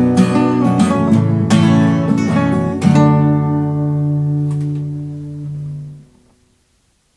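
The end of a song on strummed acoustic guitar: a few quick strums, then a final chord about three seconds in that rings on and dies away a few seconds later.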